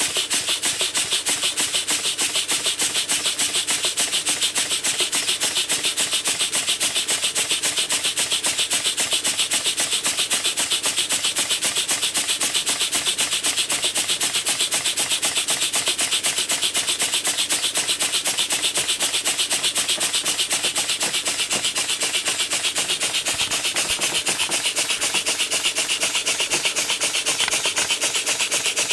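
Schoenner Lipsia toy steam engine running at a steady speed on its first steaming after repairs: a fast, even beat of exhaust steam and hiss.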